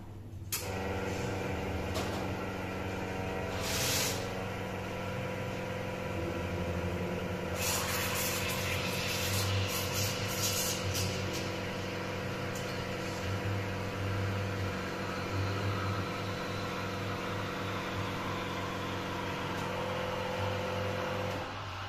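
Espresso machine's pump humming steadily while a shot is pulled, with a short steam-wand purge hiss near 4 s. From about 7.5 s the steam wand hisses loudly as milk is steamed in a stainless pitcher, its pitch slowly dropping, and both cut off just before the end.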